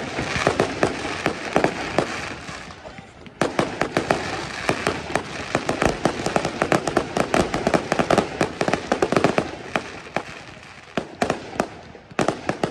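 Fireworks display: rapid volleys of sharp bangs and dense crackling from bursting aerial shells and ground-fired effects. The sound stops abruptly about three seconds in, starts again in full, and thins to a few separate bangs near the end.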